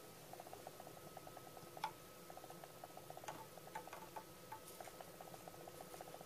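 Cat lapping water: quick, even runs of soft ticking laps, broken by a few sharper clicks around the middle.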